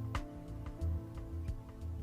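Soft background music: sustained held notes over a low, slow pulse.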